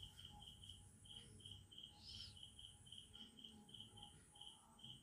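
Near silence, with a cricket chirping faintly: short high chirps repeating at about four a second. A single brief higher chirp comes about two seconds in.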